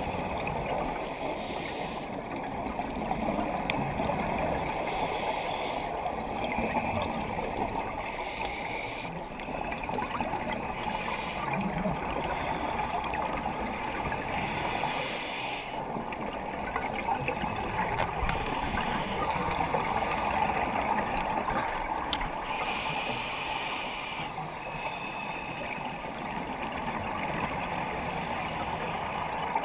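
Underwater ambience heard through a camera housing: a steady rushing hiss, with a scuba diver's exhaled regulator bubbles gurgling up in bursts every few seconds.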